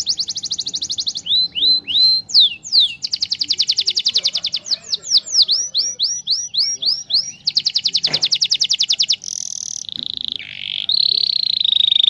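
Domestic canary singing a long, varied, loud song: fast rattling trills alternate with runs of quick down-slurred notes, and it ends on held whistled tones.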